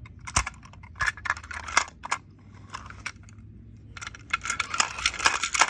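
Hard plastic toy figures being handled: scattered clicks and knocks, turning into a busy clatter of rattling plastic about four seconds in.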